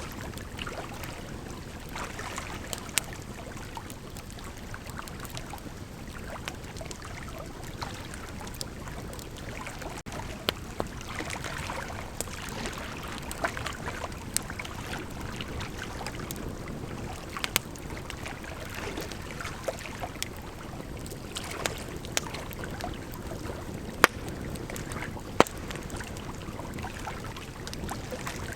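Bonfire burning: a steady noise of the flames with scattered crackles and pops, and a few louder sharp snaps spread through.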